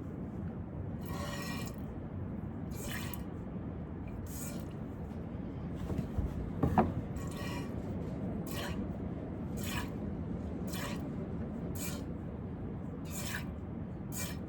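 Squirts of milk hitting a pot as a Nubian goat is hand-milked, one short hissing squirt about every second or so, with a brief louder knock about halfway through.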